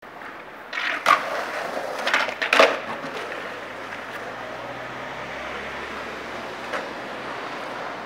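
Skateboard on concrete: several sharp clacks of the board hitting the ground, the loudest about two and a half seconds in, then the wheels rolling steadily on the pavement, with one more light click near the end.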